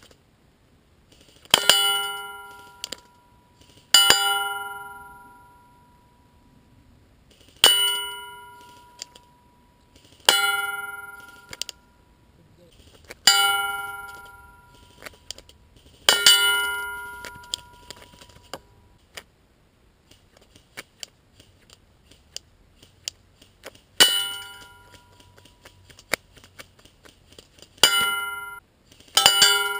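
A metal target rings with a loud clang each time an airsoft BB from a Cyma M14 EBR fired on semi-auto strikes it. There are about ten single hits a few seconds apart, each one ringing out over a second or two, with two quick hits close together near the end.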